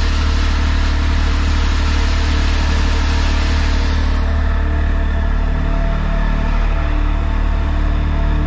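Engine of a tow-behind sewer jetter running steadily under load, with the hiss of high-pressure water that drops away about four and a half seconds in while the engine keeps running.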